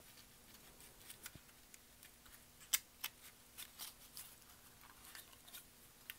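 Faint crinkling and light clicks of 65 lb cardstock paper petals being pinched and pressed together by hand, with one sharper click about two and a half seconds in.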